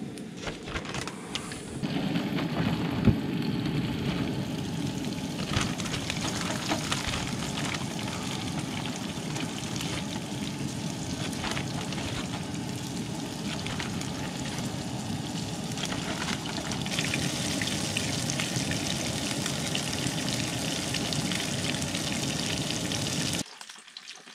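Breaded cusk nuggets sizzling and crackling in hot oil with garlic in a frying pan on a propane camp stove. The frying starts about two seconds in as the pieces go into the pan, and stops abruptly near the end.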